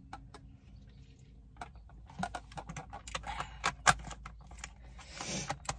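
Small close-range clicks and taps of eating and drinking at the table. They start about one and a half seconds in and go on irregularly, with one sharper knock about four seconds in and a soft hiss near the end.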